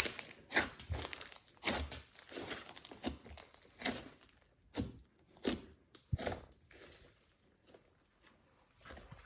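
Glossy slime being squished and stretched by hand, giving irregular wet crackles and pops, with a quieter lull about seven seconds in.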